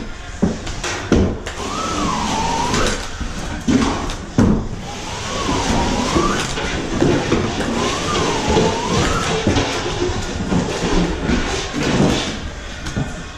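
Drywall flat box on an extension handle being pushed along a ceiling joint: a steady scraping hiss of joint compound, with a few sharp knocks. A wavering squeal comes and goes three times.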